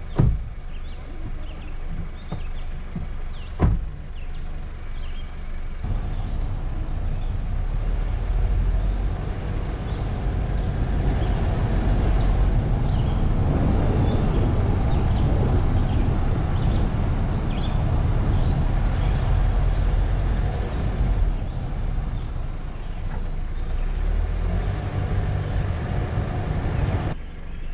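A thump about four seconds in, like a car door shutting. From about six seconds the car drives off: low engine rumble with road and wind noise on the hood-mounted microphone, easing off near the end.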